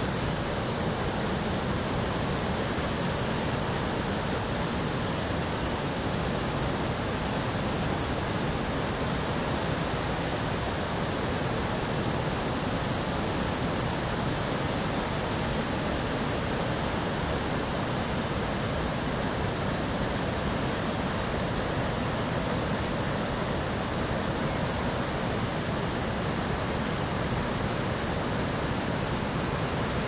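Steady rushing of a river's rapids and falls in flood, fast white water running high after heavy rains.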